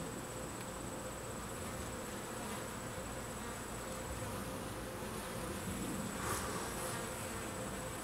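Italian honey bees buzzing steadily around an opened top-bar hive.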